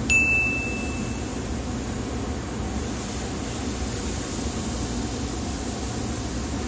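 Marinated beef short ribs sizzling steadily on a hot kamado grill grate as more strips are laid down. A short electronic tone sounds during the first second.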